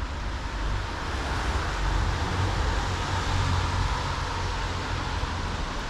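Steady street traffic noise, a car passing that swells slightly in the middle and eases off.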